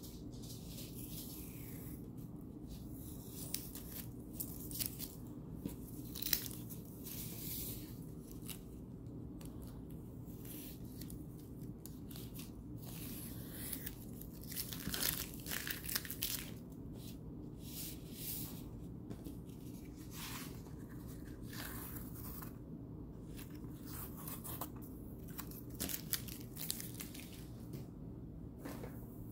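Washi tape being peeled off the edges of a watercolor paper sheet in a series of short, irregular ripping strokes, with some paper rustling, over a faint steady hum.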